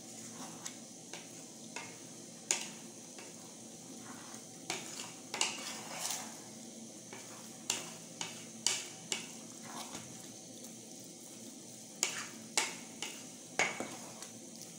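A spoon stirring and tossing spaghetti with tomato sauce in a metal pot. Irregular scrapes and knocks against the pot sound over a steady faint hiss.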